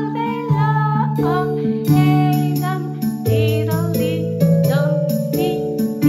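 Children's song playing: a voice singing a melody over held accompaniment chords.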